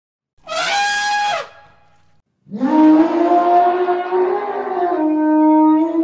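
Elephant calling: a short, high trumpet blast about half a second in that bends down in pitch as it ends, then a longer, lower trumpeting call from about two and a half seconds in.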